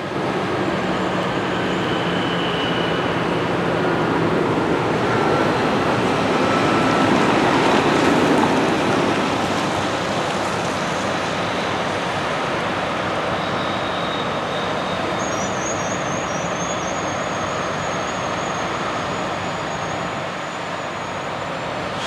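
New Holland CR8090 combine harvesting corn, with a T9.450 four-wheel-drive tractor pulling a grain cart alongside: a steady machinery drone. It swells a little around the middle and then eases.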